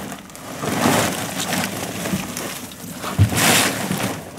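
Woven plastic bulk bags rustling and crinkling as they are dragged off a load, in two loud bursts, about a second in and again near the end. A short dull thump comes just before the second burst.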